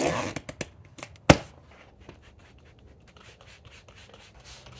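Handling noise: rubbing and a few clicks, with one sharp knock about a second in, then faint scratchy ticking.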